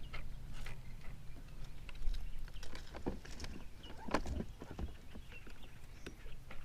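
Scattered small knocks and clicks of handling and gear against a kayak, over a low rumble, with a cluster of louder knocks about three to four seconds in.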